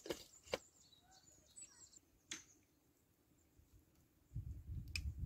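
A few light clicks and clinks of cookware as broth is ladled from a steel pot into an enamel bowl, with faint bird chirps. Near the end comes a low rustling rumble with one sharp click.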